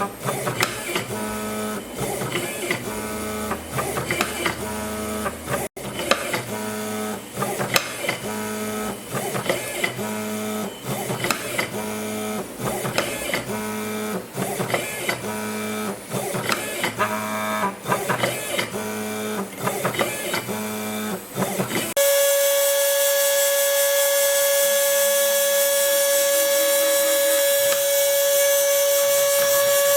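Stepper motors of a homemade CNC router, driven by a TB6560 board, whining at shifting pitches as the axes move in short, repeated strokes while milling a circuit board. About 22 seconds in, the sound changes abruptly to a steady, louder high-pitched whine with a hiss.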